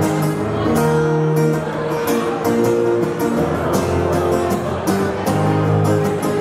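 Background music: a song with held chords and a steady beat.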